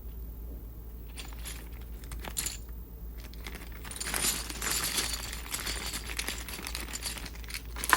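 Small plastic Monopoly houses and hotels clicking and rattling against each other as they are handled. A few separate clicks come first, then a denser, louder rattle from about halfway through.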